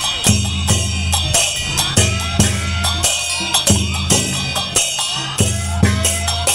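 Music with a quick, regular beat: held deep bass notes under sharp percussion hits, with short rising melodic slides above.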